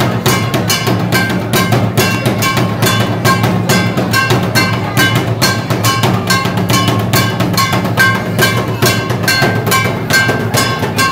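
Music with fast, steady drumming, the strikes coming several times a second, with a ringing tone on many of the beats.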